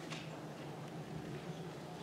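Faint rustling close to a microphone as a paper and a cloth face mask are handled, over a steady low hum.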